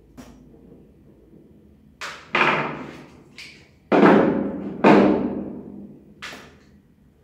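A handful of knocks and clunks of metal tools and revolver parts against a hollow workbench while a revolver is taken apart, about seven in all, the loudest two about four and five seconds in, each ringing out for about a second.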